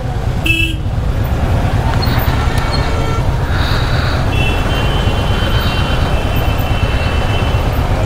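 Vehicle horns honking in slow, crowded traffic over a steady low rumble of engines and road noise: a short beep about half a second in, then a longer horn held for about three seconds from midway.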